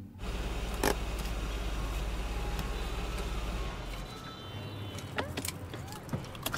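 A car's low, steady engine hum with street noise, fading out a little before halfway. Near the end a seatbelt is pulled out across the seat, with a run of short clicks and rustles.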